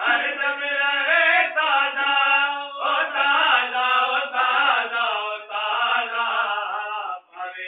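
Chanted devotional recitation: a voice singing melodic, wavering phrases with short breaths between them. It starts abruptly and drops away briefly near the end.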